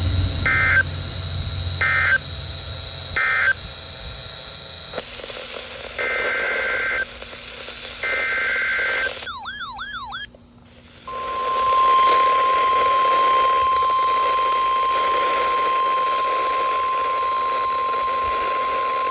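Emergency alert data and tones received over weather radio. First come three short chirping SAME data bursts, the end-of-message code. Then come two longer SAME header bursts and a brief wavering tone, followed by the steady 1050 Hz NOAA Weather Radio warning alarm tone held for about nine seconds over a hiss of radio noise.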